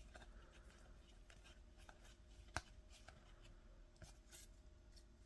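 Faint flicking and rustling of trading cards handled one after another, with a sharper tick about two and a half seconds in.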